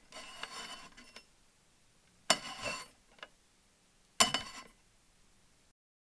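Glass wine bottles clinking in a rack: three ringing clinks about two seconds apart, with a faint tick between the last two.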